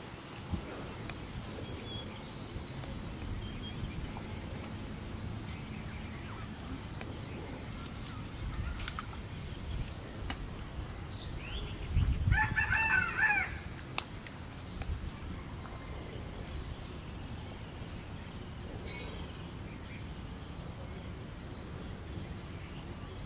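A rooster crows once, about halfway through: a single call lasting about a second and a half, over a steady high-pitched hiss.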